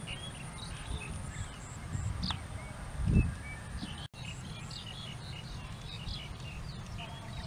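Birds chirping in short scattered calls over a steady low rumble, with one louder low thump about three seconds in.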